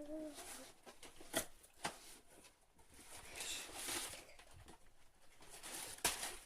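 A child handling and opening a cardboard shipping box: soft rustling of cardboard and paper with a few sharp taps and knocks.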